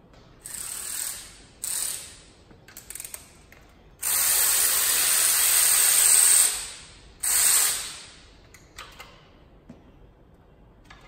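Pneumatic air ratchet run in hissing bursts, undoing bolts on an LS engine's dipstick tube and extractors: two short bursts, a long one of about two and a half seconds, then a shorter one.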